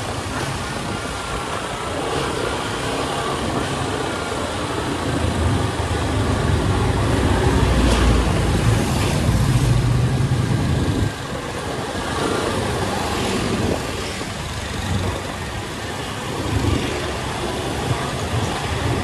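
Road traffic and vehicle noise. There is a steady rush, and a louder low rumble builds from about five seconds in, then drops off suddenly about eleven seconds in.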